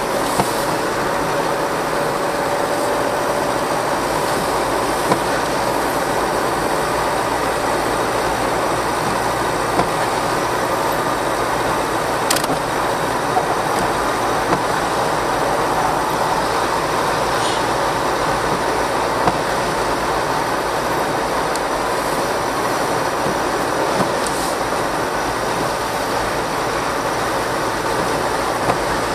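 Steady road and engine noise inside a moving car's cabin, tyres running on a wet road, with a few small clicks scattered through it.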